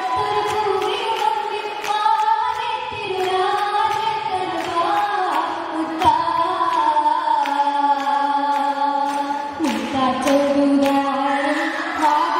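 Oppana: female voices singing a Mappila song in chorus, with sharp rhythmic hand claps from the dancers.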